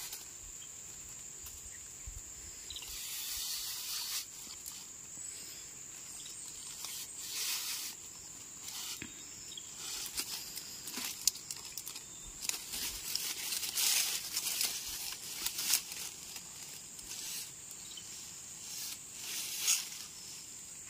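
An insect's steady high-pitched buzz, with short crackles and rustles in dry leaves and grass every few seconds.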